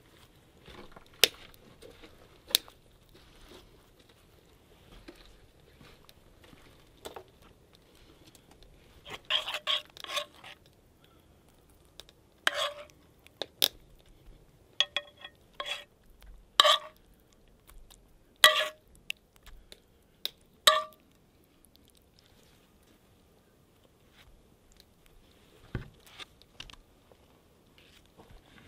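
Metal spoon clinking and scraping against a cast iron skillet while gravy is served, heard as scattered sharp clinks that come mostly in the middle, with a few light knocks on a wooden cutting board.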